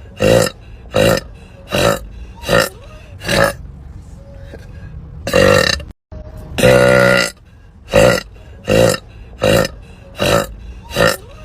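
A woman burping over and over. Short burps come about one a second, then two long drawn-out burps in the middle with a brief break in the sound between them, then more short burps.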